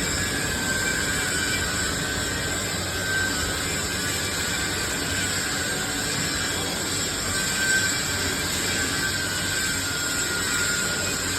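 Steady hiss and hum of a GTAW (TIG) welding arc on a pipe-to-flange root run, with a faint high whine.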